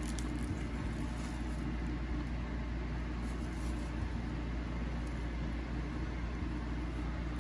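A steady low hum of room machinery, with faint crinkles from the plastic shrink wrap on a DVD case being handled near the start and again about three seconds in.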